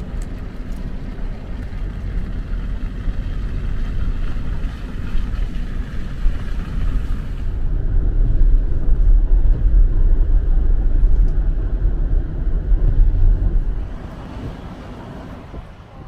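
Road vehicle passing on the street, a low engine and tyre rumble that builds about halfway through and falls away near the end.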